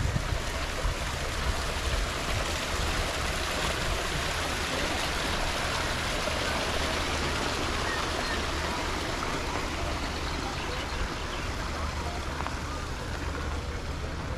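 Water splashing down a small artificial waterfall on a model railroad's rock mountain: a steady rushing hiss, loudest in the middle and easing a little near the end, over a low rumble.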